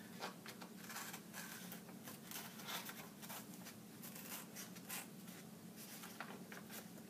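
Scissors cutting paper: a run of quick, irregular snips and paper rustling, faint, over a low steady hum.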